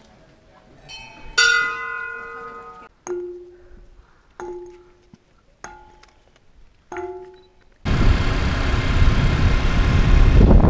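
A stone slab struck five times, each strike ringing like a bell with clear tones that die away within about a second; the first strike is the loudest. About eight seconds in, the steady rush of wind and engine noise from a moving motorbike takes over.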